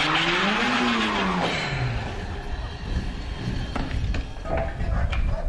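Rally car's engine climbing in pitch and then dropping away as the car slides through a hairpin, with a hissing screech of tyres over it. The engine fades into a rougher mix of noise after about two seconds.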